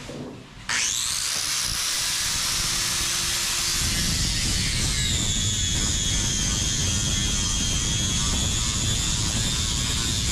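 Electric angle grinder with a sanding disc starting up about a second in, its high motor whine quickly reaching speed. About halfway, the whine drops in pitch and a coarse grinding noise comes in as the disc bears on the fiberglass, smoothing and flattening a rough-cut edge ready for glassing.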